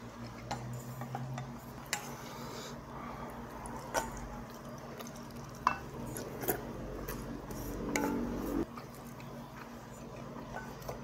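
Wooden spoon and chopsticks clinking and scraping against a stainless steel bowl while noodles and rice are eaten, with several sharp clicks. A steady hum lasts about a second and a half, two-thirds of the way through.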